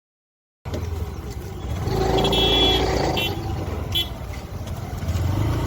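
Motor vehicle traffic running with a steady low rumble, cutting in suddenly just under a second in. A vehicle horn toots briefly about two seconds in, then gives two shorter toots about a second apart.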